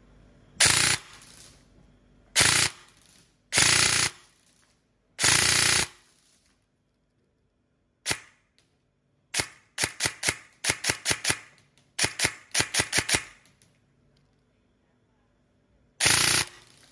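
E&C 840 airsoft electric rifle with a GATE Titan unit firing. It fires four short full-auto bursts, then a single shot, then runs of quick single shots, then two more short bursts near the end.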